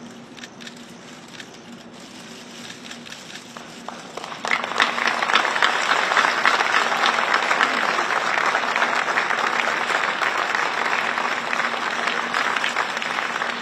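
Applause breaks out about four and a half seconds in and keeps going steadily: many people clapping. Before it there are only a few scattered faint clicks.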